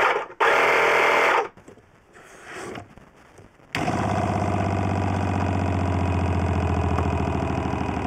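A portable tyre inflator runs in two short bursts, pumping air into the water system's accumulator. About halfway through, a Shurflo Trail King 7 12-volt diaphragm water pump starts and runs steadily with a fast, even pulsing, building pressure in the cold water lines.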